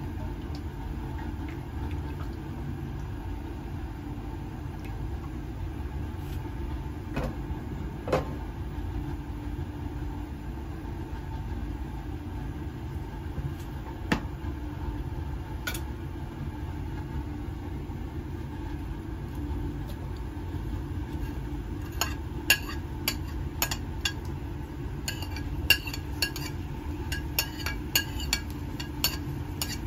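Gas stove burner running with a steady low rumble under a frying pan, with a few knocks in the first half. From about two-thirds in, a metal spoon clinks and scrapes repeatedly against a ceramic bowl as chopped garlic is pushed into the pan.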